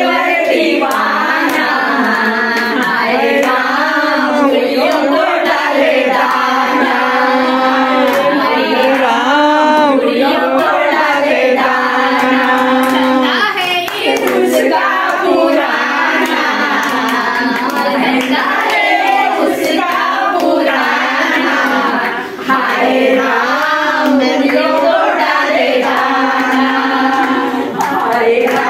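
A group of women singing a song together, clapping their hands to the beat.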